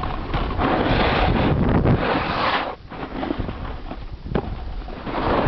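Wind buffeting the microphone: a loud, rough rushing noise that swells for about two seconds, drops out briefly near the middle, then returns.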